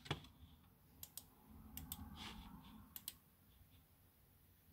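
A few faint, sharp clicks from working a computer's mouse and keys, several coming in quick pairs, with a faint low rumble around two seconds in.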